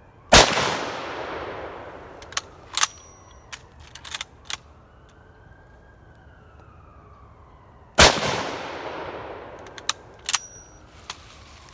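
Two rifle shots from a 1938 Mosin-Nagant M91/30 (7.62×54mmR), about eight seconds apart, each echoing for a couple of seconds. After each shot comes a run of sharp metallic clacks as the bolt is worked to eject the spent case and chamber the next round.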